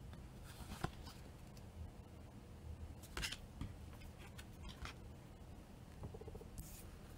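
Faint swishes and rubs of cardboard trading cards sliding against each other as cards are moved through a hand-held stack, a few soft strokes a second or two apart.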